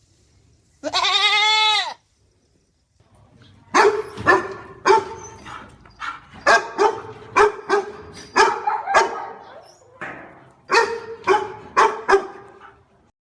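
A single loud, drawn-out animal call that rises and falls in pitch, then, after a short pause, a dog barking over and over in quick, sharp barks, about two a second, with a brief break near the end.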